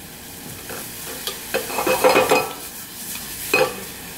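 Minced aromatics and dried herbs frying with a light sizzle in a small stainless-steel saucepan, while a wooden spoon stirs and scrapes against the pan. The spoon strokes come loudest in a cluster about two seconds in, with one more sharp scrape near the end.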